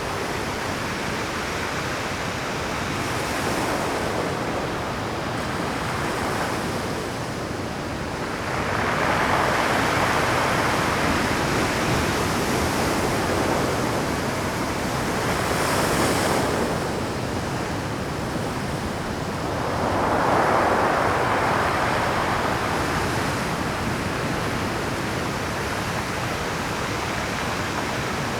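Pacific surf breaking on a rocky shore: a continuous wash of waves, with two larger breakers swelling up about 8 seconds in and again about 20 seconds in.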